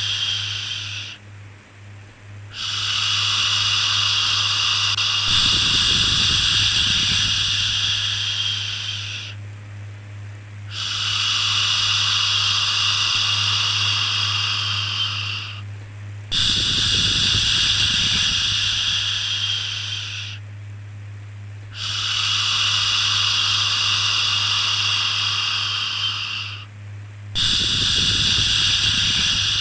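Long, steady 'shhh' shushes, each held about four to six seconds with a short pause between them, repeating about five times, over a steady low hum.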